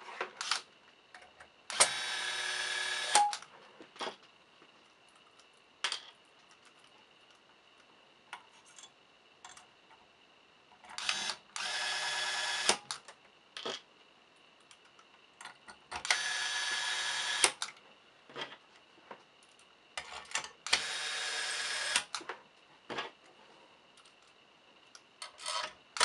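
Small electric screwdriver driving screws into a lock's metal case. It runs in short whirs of about a second and a half each, four times plus once more starting near the end, with light clicks of screws and parts being handled in between.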